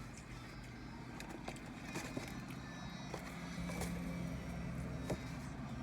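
Car engine idling with a steady low hum inside the parked car's cabin, with scattered small clicks and rustles over it.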